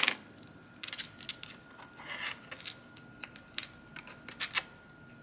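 Scattered light clicks and taps of small tools and parts being handled on a laptop being taken apart, with a soft rustle about two seconds in and a faint steady high tone underneath.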